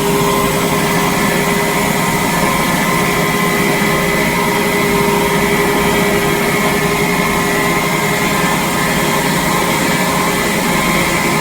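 Electric fan motor running together with a compressor: a steady, even whirring noise with several constant whining tones over it.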